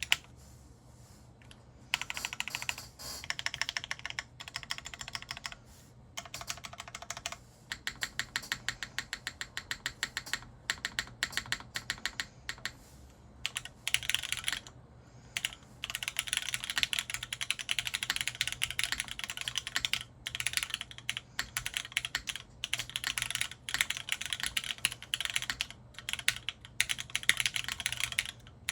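Typing on a TGR Jane V2 ME custom mechanical keyboard with Cherry MX Black linear switches, stems polished with diamond paste, on a top-mounted full polycarbonate plate with no foam, under GMK keycaps. Fast runs of keystrokes start about two seconds in and break off now and then for short pauses.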